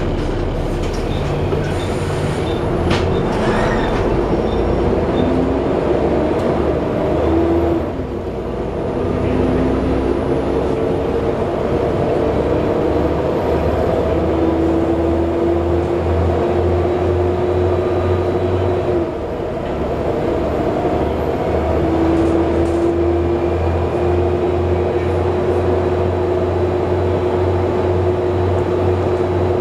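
Plaxton President double-decker bus heard from inside while under way: the engine and cooling fan run with a steady drone. A whine rises in pitch through each gear and drops back at gear changes about 8 and 19 seconds in. A light ticking about twice a second runs through the first few seconds.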